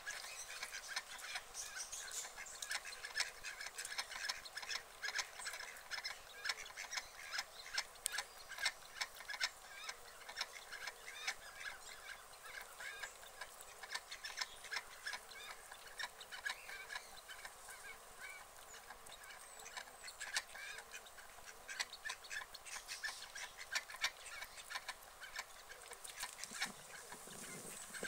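White domestic ducks calling, many short calls in quick, irregular succession.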